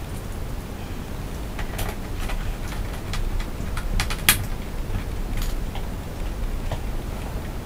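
Scattered light clicks and taps of parts being handled and fitted on a computer case side panel, the sharpest about four seconds in, over a steady low hum.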